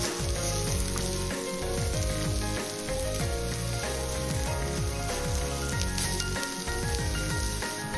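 Thin slices of meat sizzling as they fry on non-stick foil in an aluminium mess tin, turned over with tongs, under background music.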